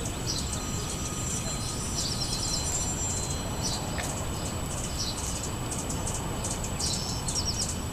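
Small songbirds chirping and calling over and over, with short high trills, over a steady low rumble of background noise.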